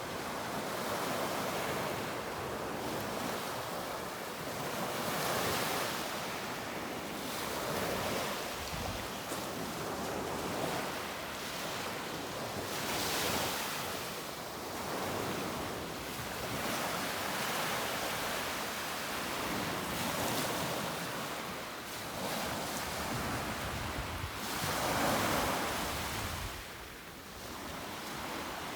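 Baltic Sea waves washing in a steady rush that swells and ebbs every few seconds, with wind noise on the microphone.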